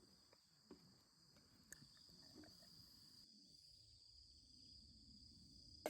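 Near silence, with a faint steady high-pitched tone and a few faint ticks.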